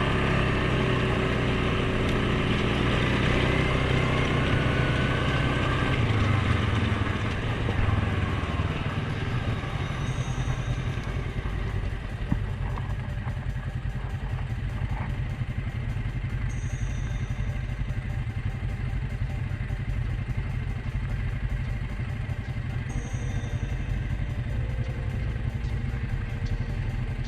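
Suzuki KingQuad 750 ATV's single-cylinder engine running under way, its pitch rising and falling with the throttle for the first several seconds, then running steadier and a little quieter from about twelve seconds in.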